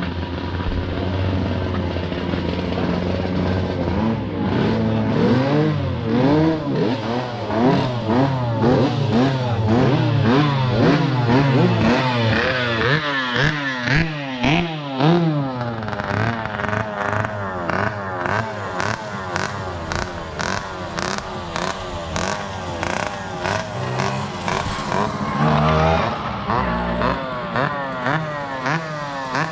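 A pack of Tomos two-stroke mopeds racing, their engines revving hard up and down over each other, several engine notes rising and falling at once.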